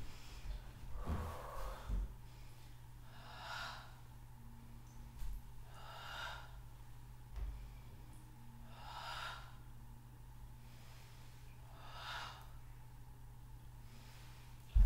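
A woman breathing out audibly during a pilates exercise, four hissy exhalations about three seconds apart, over a steady low hum. A sharp thump comes at the very end.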